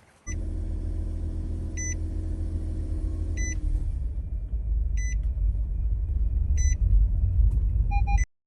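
Steady low rumble, like a vehicle running, with a short electronic beep repeating about every second and a half; it starts suddenly just after the start and cuts off abruptly near the end.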